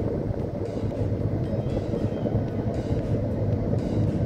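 Steady low road and engine rumble inside the cabin of a car driving along at a steady pace.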